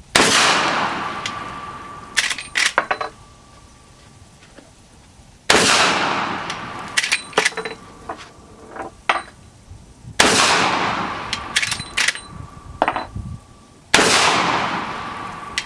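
Four shots from a Henry lever-action rifle in .45-70 Government, about four to five seconds apart. Each rings out and fades over a couple of seconds. Between shots come quick sharp metallic clicks as the lever is worked to chamber the next round.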